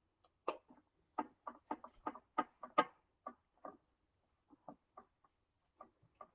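A utensil tapping and scraping against a bowl while black bean mixture is scooped out onto tortillas: a run of quick, irregular clicks, thick for the first few seconds, then fewer and fainter.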